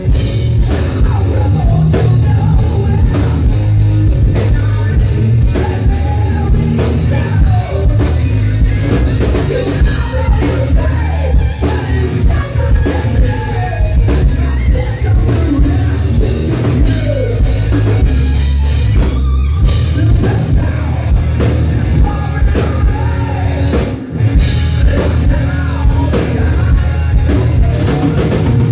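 Hard rock band playing live and loud: distorted electric guitar over a pounding drum kit, with a lead line bending and sliding in pitch over the band. The band cuts out for a split second twice in the second half.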